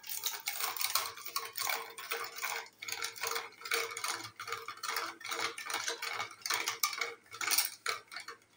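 Metal churning stick spun back and forth between the palms in a stainless-steel mug, giving a rapid, irregular clatter and ticking as it knocks the mug while whisking sour yogurt, sugar and water into buttermilk (ghol). The clatter stops just before the end.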